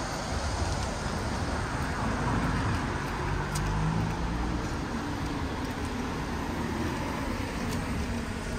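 Road traffic on a town street: a steady rumble of car engines and tyres, with one vehicle passing a little louder around three to four seconds in.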